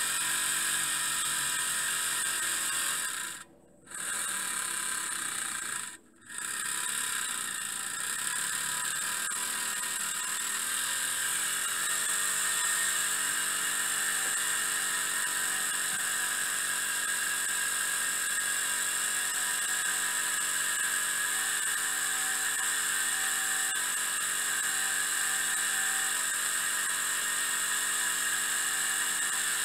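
Miniature three-cylinder steam engine with Maudslay reversing gear running fast with a steady high-pitched whine. The sound cuts out briefly twice a few seconds in.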